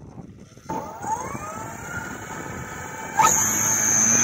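Electric motor and propeller of a large RC Slick 540 aerobatic model (Boos 180 motor on a 12S battery) spooling up: a whine that rises in pitch and levels off, then a sudden step up in throttle about three seconds in, louder and higher.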